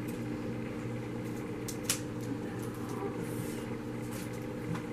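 Scissors snipping a tag fastener off a handbag handle: one sharp snip about two seconds in, with a few fainter clicks and a brief rustle. A steady low hum runs underneath.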